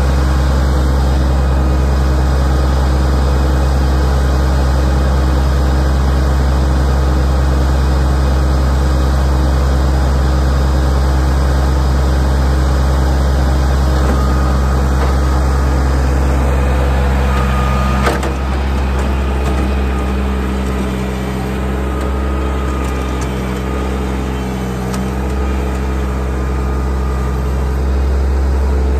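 Mahindra Max compact tractor's diesel engine running steadily at idle. About eighteen seconds in there is a sharp knock, and after it the engine note wavers up and down as the tractor drives and works its front loader.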